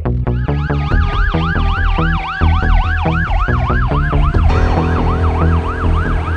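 Fire apparatus electronic siren on a fast yelp, sweeping up and down about three to four times a second, with a second, slower siren tone falling steadily beneath it.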